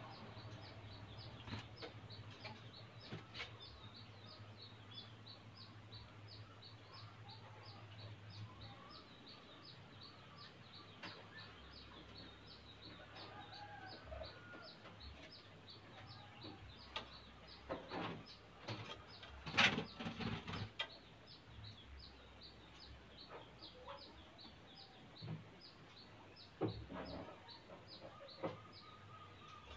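Faint bird calls over a steady high ticking about twice a second. A handful of sharp knocks and taps come in a cluster a little past the middle, the loudest sounds here.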